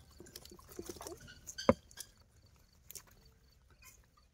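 Live fish flapping in a plastic tub, tails slapping against the plastic and each other in scattered irregular slaps, with one sharp, loud slap about two seconds in.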